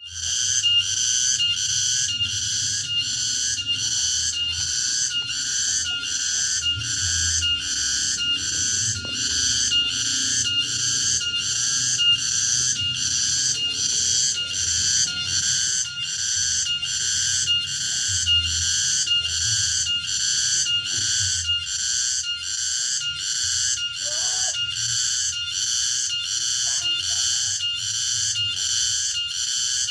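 Cicada singing: a continuous shrill buzz that pulses evenly, about one and a half pulses a second.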